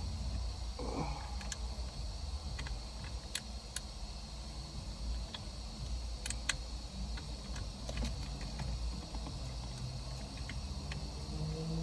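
Scattered light clicks and taps of hand work on parts at a car's steering column, coming irregularly, with a soft brief rustle about a second in, over a steady low hum.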